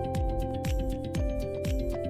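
Background music with a steady beat: a deep kick drum about twice a second under sustained electronic notes.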